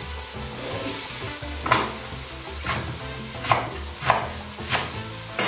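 Chunks of vegetables tipped into a stainless steel pot over a sizzling aderezo, then a wooden spoon stirring them, knocking against the pot about six times, each knock with a short metallic ring.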